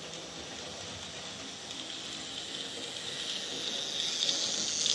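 H0 model train, an ESU V60 diesel locomotive with a steam locomotive coupled on, running along the track: a steady hissing rolling and motor noise that grows louder towards the end as it approaches.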